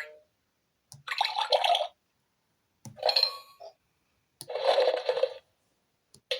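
LeapFrog Scout and Violet 100 Words talking book playing its recorded fun-sound effects through its small speaker: three short effects of about a second each, separated by silence.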